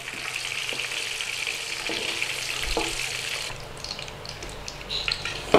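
Hot frying oil sizzling in a wok as tempura-battered fish pieces are lifted out with a wire spider strainer, with a few faint knocks. The sizzle dies down after about three and a half seconds, the flame having just been turned off.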